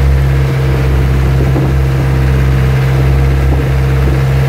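Outrigger bangka's engine running steadily under way, a loud, even low drone, with water splashing at the outrigger.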